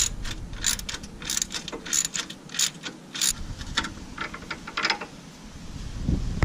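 Hand ratchet wrench clicking through quick repeated strokes, about two to three a second, with a short pause near the end.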